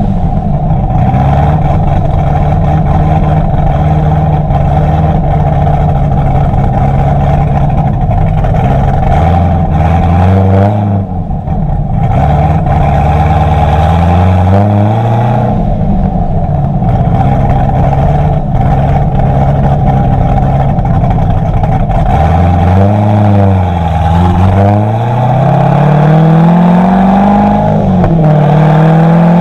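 Billy Boat PRT axle-back exhaust on a C6 Corvette Grand Sport's supercharged 6.2-litre LS3 V8, heard right at the quad tips while driving: a steady deep exhaust note. Several times the note climbs in pitch under acceleration and then drops back, mostly in the middle and toward the end.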